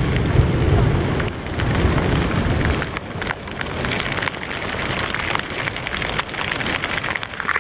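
Rain falling steadily during a thunderstorm, with many close drops ticking, and a low rumble in the first couple of seconds.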